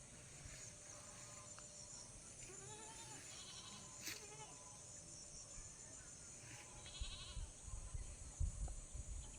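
Faint animal calls, several rising-and-falling cries a few seconds in and again later, over a steady high insect drone, with a low rumble near the end.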